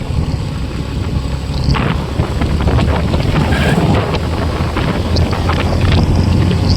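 Wind buffeting the microphone while riding a motorcycle, a steady rushing noise with engine and road noise underneath.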